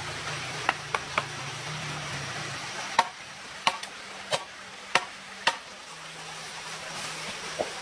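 Steady rain hiss with about nine sharp, irregular knocks, the loudest coming between three and six seconds in.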